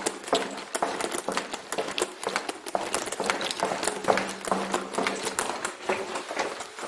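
Rapid, irregular clicking and knocking, many sharp strikes a second, over a faint steady hum.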